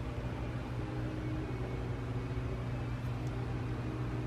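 Steady low hum with a faint hiss under it: indoor room tone, with no clear events.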